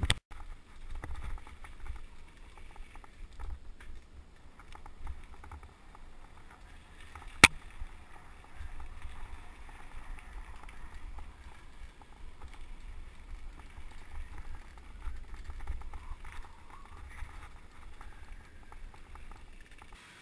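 Riding noise picked up by a bicycle-mounted camera: wind buffeting the microphone and the tyres rolling and rattling over the path. A single sharp click about seven seconds in.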